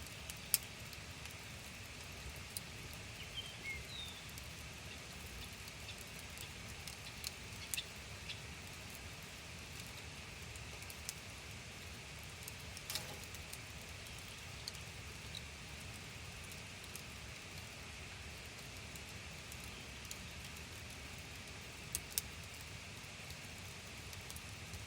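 Wood campfire crackling: sparse, irregular sharp pops and snaps over a steady hiss, with a constant high hum in the background.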